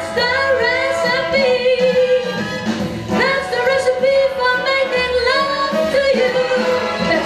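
A woman singing a song live with band accompaniment, holding long notes that waver slightly.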